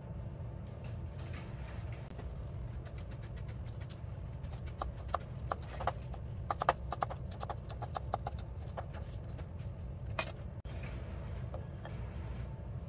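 Kitchen knife chopping fresh chives on a wooden cutting board: a quick, irregular run of hollow knocks of the blade on the board, over a steady low hum.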